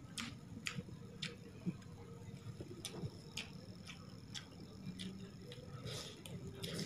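Close-up eating sounds: wet clicks and smacks of a mouth chewing, with a hand squishing and scooping sauce-soaked rice, in irregular clicks a few times a second.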